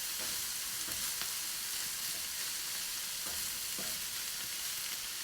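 Minced pork and mushrooms sizzling steadily in a hot pan, with a few light scrapes of a utensil stirring them.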